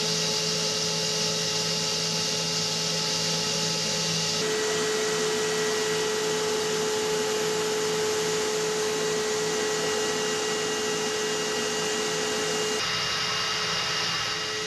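Steady mechanical whine over a rushing hiss, with a few held high tones. The tone mix changes abruptly about four seconds in and again near the end.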